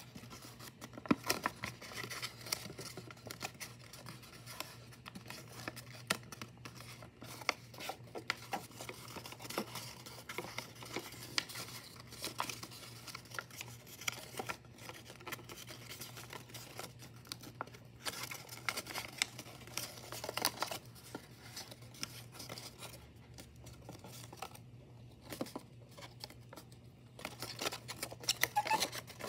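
Sheets of white origami paper rustling and crinkling as they are folded and creased by hand, with many small irregular crackles and clicks.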